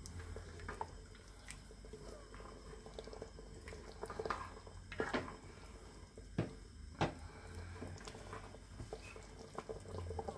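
Wooden spoon stirring thick nihari stew in a stainless steel pot, with the liquid sloshing and dripping as flour-and-water slurry is poured in to thicken it. The spoon knocks against the pot a few times, sharpest about five, six and a half and seven seconds in.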